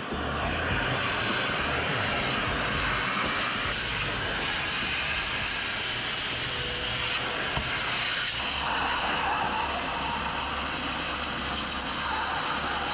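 Steady, loud rushing hiss from a machine, its tone shifting slightly about eight seconds in.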